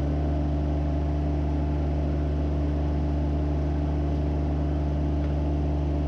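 An engine idling steadily at an even pitch.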